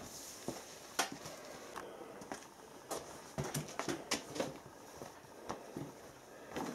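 Quiet workbench handling noises: scattered light clicks and knocks, with the rustle of a paper towel being pulled from its box.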